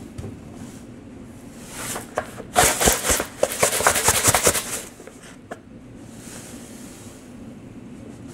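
Dry salt grains rattling and scraping inside a glass jar as they are mixed, a dense clatter of tiny ticks lasting about two seconds midway through.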